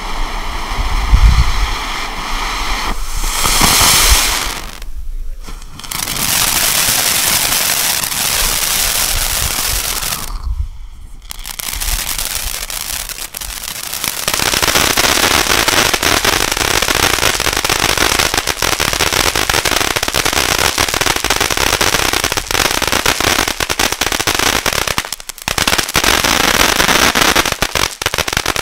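Race Car (P3228) firework fountain spraying sparks with a steady hiss that changes with each effect, breaking off briefly about 5 and 11 seconds in. From about halfway through it turns to a dense, continuous crackling.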